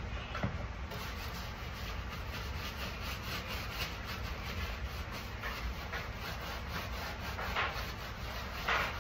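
Rapid back-and-forth scrubbing as a kitchen surface is scrubbed to lift greasy grime, with a few harder strokes near the end.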